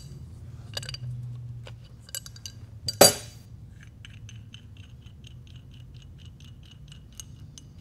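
Small metallic clicks and taps from fingers handling a carburetor metering block and working its power valve. There is one sharp clink about three seconds in, then a run of light ticks at about four a second.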